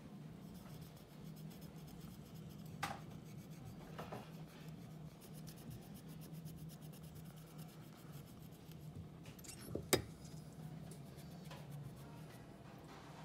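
A few light clicks and taps of small objects being handled, with faint rubbing, over a steady low hum. The sharpest click comes about ten seconds in.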